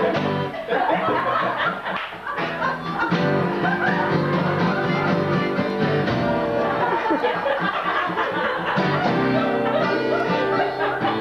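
Upright double bass plucked pizzicato, playing a continuous run of notes.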